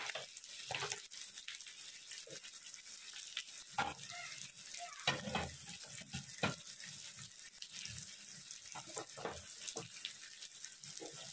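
Mutton pieces frying in masala in a pan with a steady sizzle, while a spoon scrapes and knocks against the pan every second or so.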